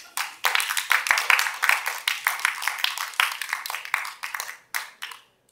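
A small audience applauding. Dense hand claps thin out after about four and a half seconds, with a last few claps near the end.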